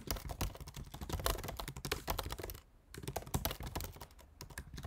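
Typing on a computer keyboard: a fast, continuous run of key clicks with a brief pause about two and a half seconds in.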